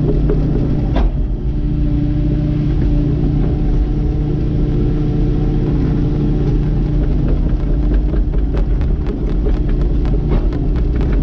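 Kubota KX080-4 excavator's diesel engine running steadily under work, with a run of quick clicks and knocks in the last few seconds.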